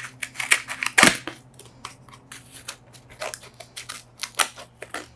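A small mail parcel being opened by hand: irregular crinkling and rustling of the packaging, with one louder knock about a second in.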